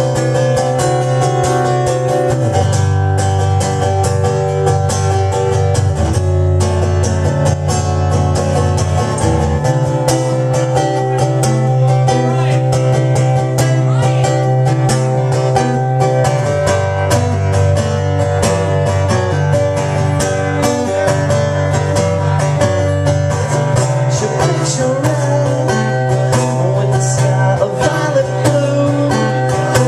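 Acoustic guitar strummed in a steady rhythm, with a man singing.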